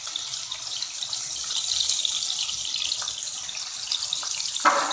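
Minced meat frying in oil in an aluminium pot: a steady sizzling hiss with fine crackles. Near the end a steel ladle scrapes against the pot as stirring starts.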